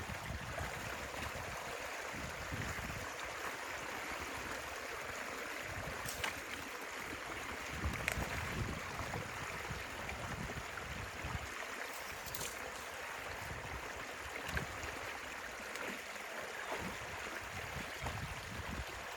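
Stream water running steadily, a constant rush with a few faint knocks.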